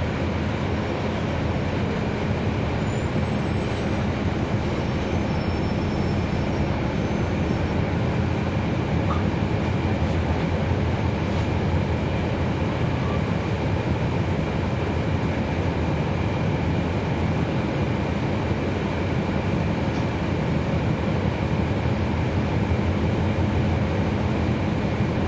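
Cummins ISL9 diesel engine of a 2011 NABI 40-foot transit bus running at a steady drone, heard from aboard the bus, with no revving up or down.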